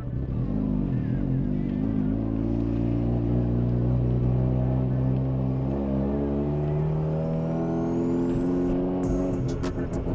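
Mazda RX-7 FD's rotary engine heard from inside the cabin while driving, its pitch climbing under acceleration, dropping at a gear change about halfway through, then climbing again.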